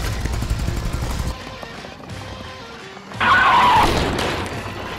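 Electric RC monster truck driving on pavement, its motor and big tyres making a low, fast-pulsing rumble that drops away after about a second, then a louder, brighter burst about three seconds in, under background music.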